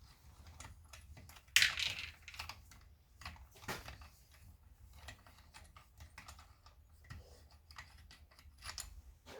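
Irregular small metallic clicks and clinks of hand tools and loose parts as a chainsaw muffler is unbolted and taken apart, with a sharper clack about one and a half seconds in.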